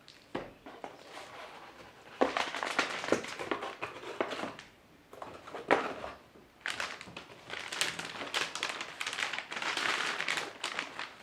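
Packaging being handled: crinkling and rustling, with sharp taps and a couple of knocks.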